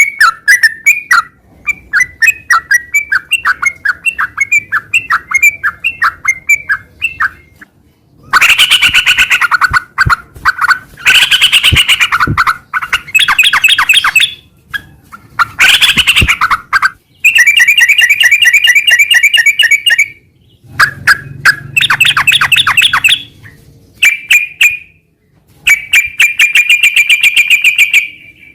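Yellow-vented bulbul (trucukan) singing in loud bouts of fast, rapidly repeated chattering notes, separated by short pauses. This is the rolling, continuous song style that keepers call ngeropel.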